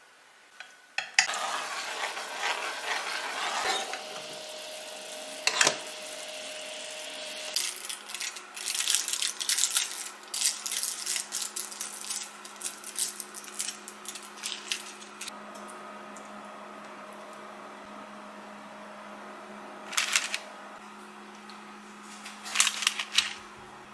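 Kitchen handling sounds: a soy-based sauce being poured and mixed in a frying pan, then aluminium foil crinkling as it is wrapped around the ends of chicken skewers, many quick crackles over several seconds. Two short bursts of handling noise come near the end.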